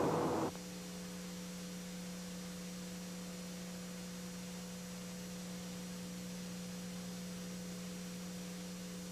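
Steady low electrical mains hum with a few fainter steady tones above it, on an old film soundtrack. A wash of outdoor noise cuts off abruptly about half a second in.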